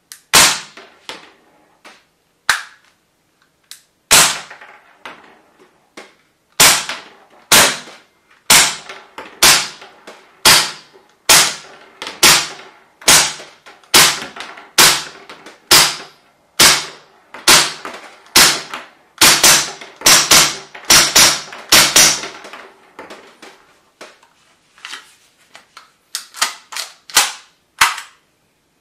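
Tokyo Marui H&K USP gas blowback airsoft pistol firing a long string of single shots, each a sharp crack of gas and the slide cycling. They come about two a second, quicken for a stretch past the middle, drop to a few fainter pops and end with a last quick run of shots.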